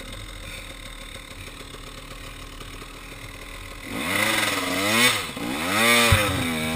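A KTM 300 XC's two-stroke dirt-bike engine ticks over quietly. About four seconds in it is revved hard in two rising-and-falling surges as the bike pulls onto a dirt climb, with a short thump near the end.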